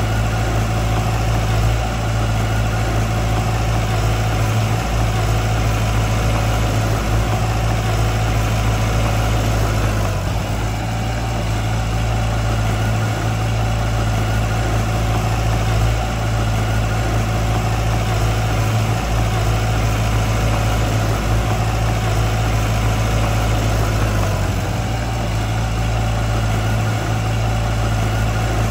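Heavy construction machine's diesel engine running steadily with a deep, constant hum, easing briefly about ten seconds in and again near the end.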